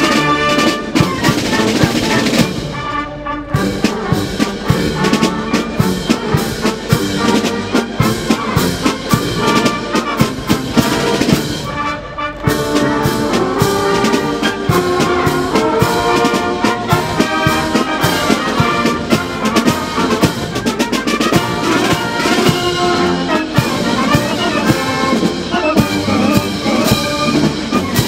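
Military marching band playing: trumpets, trombones and other brass over snare drums beating time, with two short breaks between phrases.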